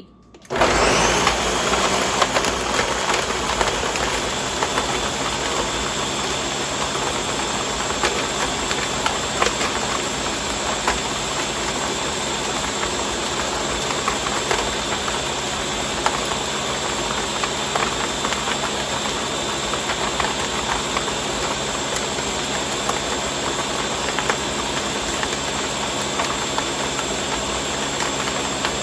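Ninja countertop blender switched on at its High setting about half a second in, the motor running steadily at full speed as it blends fruit, juice, water and ice into a smoothie.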